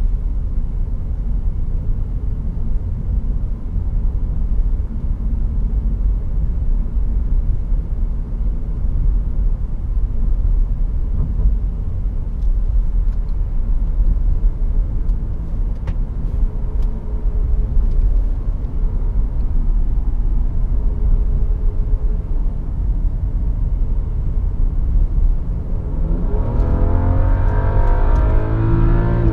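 Cabin sound of a BMW 535i (F10) with its turbocharged straight-six cruising: a steady low rumble of engine and road noise. Near the end the engine note rises as the car accelerates harder.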